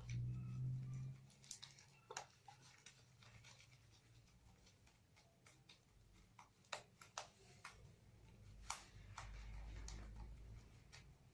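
Faint, scattered sticky clicks and ticks of homemade slime being handled and mixed, over a low hum.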